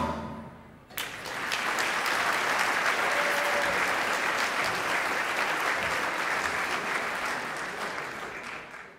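A live band's final note dies away, then about a second in an audience breaks into steady applause, which fades out near the end.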